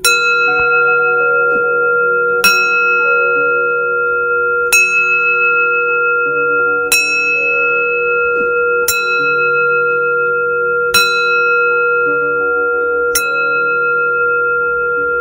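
Tibetan singing bowl struck seven times, about every two seconds, each strike ringing on into the next so the bowl's tones hum steadily throughout. It is rung to cleanse the listener before a prayer.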